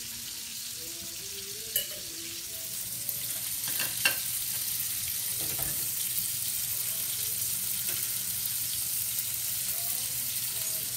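Chicken thighs and sausages sizzling in oil in a stainless steel frying pan, with a few sharp clicks as the pieces are turned. The sizzle grows a little louder about three seconds in.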